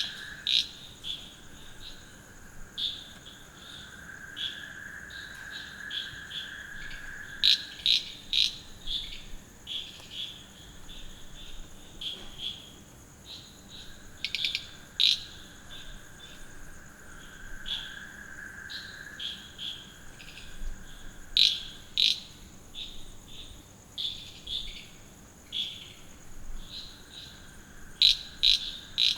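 Night ambience after rain: frogs calling in short repeated pulses, with louder clusters every few seconds, over a steady high-pitched cricket trill. A lower insect chorus swells and fades every several seconds.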